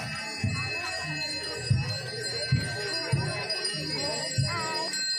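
Procession music: bells and metallic percussion ringing steadily over a low beat every second or so, with voices mixed in.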